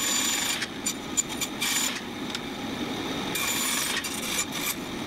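Narrow-bladed power saw running and cutting small pieces of walnut: a steady motor hum with irregular bursts of cutting noise as the blade bites into the wood.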